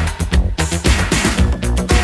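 Background dance music with a steady, heavy beat.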